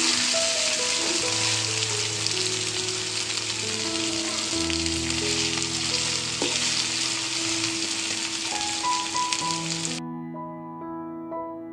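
Ridge gourd pakoras sizzling in hot oil in a tiny pan, a dense steady hiss over quiet piano music. The sizzle cuts off suddenly near the end, leaving only the piano.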